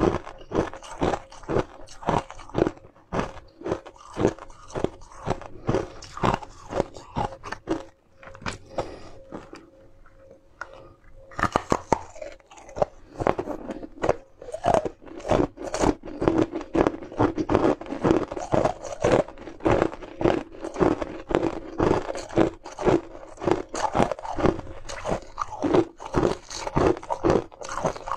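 Close-up crunching and chewing of frozen ice treats, teeth cracking through the ice at about two to three crunches a second, with a short quieter lull about a third of the way in.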